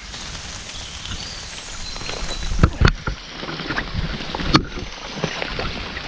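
Footsteps and rustling through wet brush and undergrowth, with crackling leaves and twigs and a few sharper snaps, the loudest near the middle.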